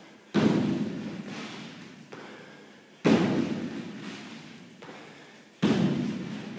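Box jumps onto a wooden plyo box: three hollow thuds as feet land on the box, about two and a half seconds apart, each dying away slowly.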